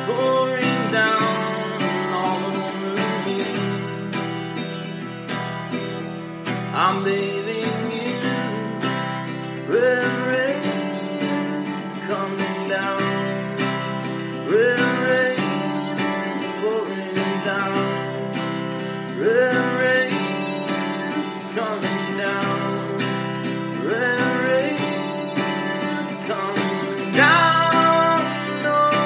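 Acoustic guitar strummed steadily, with a man singing long phrases that swoop upward about every five seconds, the last one near the end the loudest.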